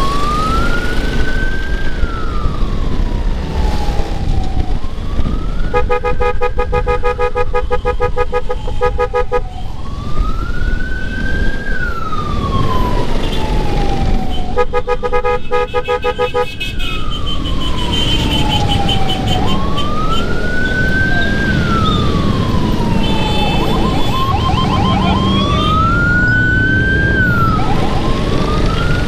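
Electronic emergency siren wailing in slow rising-and-falling sweeps about every five seconds, clearing a way through jammed traffic for an ambulance. A horn blows two long blasts over it, the first about six seconds in and the second near the middle, with road and engine noise underneath.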